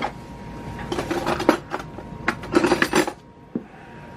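Kitchen dishes and utensils clinking and clattering as they are handled, in two bursts of quick knocks, about a second in and again around two and a half seconds in.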